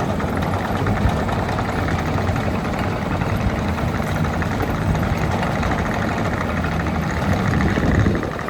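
Case TV450 compact track loader's diesel engine idling steadily; near the end it swells briefly, then drops a little lower.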